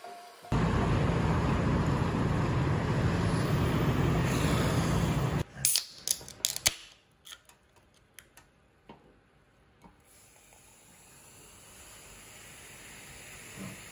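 A loud, dense rushing noise for the first few seconds, then a handful of sharp clicks and knocks. After that, a fizzy drink from a can is poured over an ice cube in a glass, the fizzing hiss growing steadily louder toward the end.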